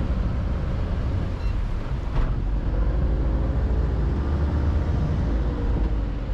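Small tour boat's motor running steadily under way, a constant low rumble, with one brief sharp sound about two seconds in.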